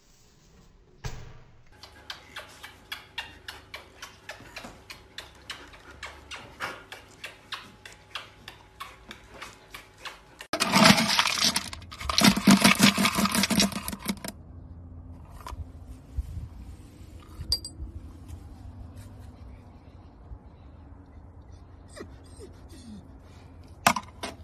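Dry dog kibble poured from a plastic scoop onto a pile of kibble: a loud, dense rattle lasting about three and a half seconds, preceded by a run of small quick clicks and taps.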